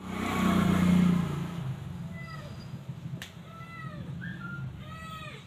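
Young puppies whining, with about half a dozen short, high-pitched cries that rise and fall. A loud low drone dominates the first second and a half.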